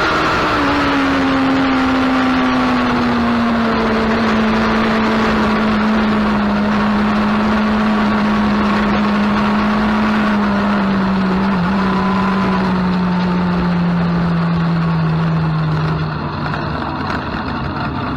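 A motor vehicle running steadily with a constant rush of noise, its engine note slowly falling in pitch. The level drops a little near the end.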